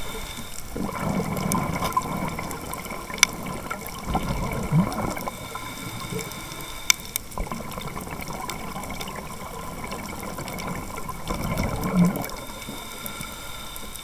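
Underwater sound of a scuba dive: a steady hiss with the gurgle of a diver's exhaled regulator bubbles swelling now and then, about a second in, around the middle and near the end. Two sharp clicks cut through.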